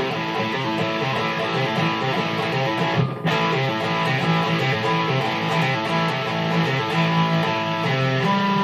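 Background music with guitar: strummed guitar chords over a bass line, with a brief dropout about three seconds in.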